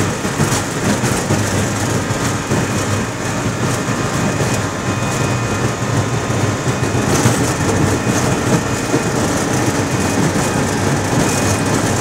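Airliner's jet engines at takeoff thrust and the rumble of its wheels rolling fast down the runway, heard from inside the cockpit during the takeoff roll past 100 knots. A steady, loud, even noise.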